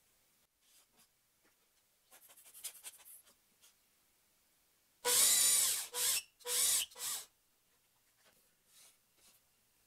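Cordless drill boring into wood: one run of about a second, then two shorter bursts, each with a motor whine that rises and falls. Before it come a few light clicks and rustles as the wooden jig and shavings are handled.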